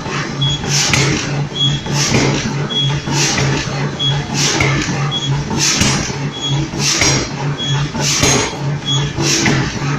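Forging factory machinery running in a steady cycle: a hissing burst with a short high beep about every 1.2 seconds, over a low pulsing hum.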